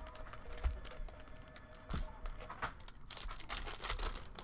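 Foil wrappers of Panini Prizm WNBA trading-card packs crinkling in the hands, with one pack being torn open. It comes as an uneven run of crackles and rustles, loudest in the second half.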